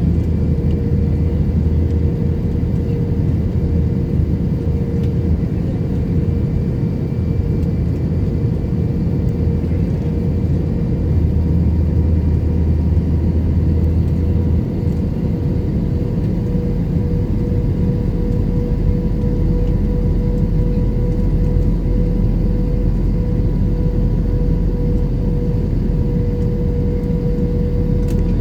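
Airbus A321 cabin noise: a steady rush of engine and airflow noise with a constant mid-pitched tone and a low rumble underneath.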